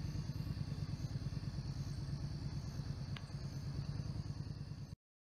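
Motorcycle engine running steadily with a fast low pulsing exhaust note. It cuts off suddenly near the end.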